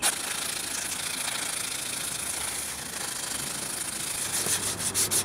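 A narrow strip of 100-grit sandpaper pulled back and forth over a wooden knife handle, shoeshine-style, rounding the handle's edges. It makes a steady rasping hiss, with separate strokes coming through near the end.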